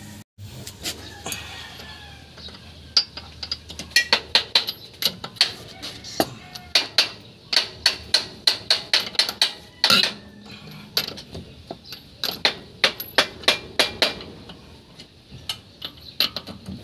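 Quick runs of sharp metallic clicks from a socket wrench working on a car wheel's lug nuts as they are taken off.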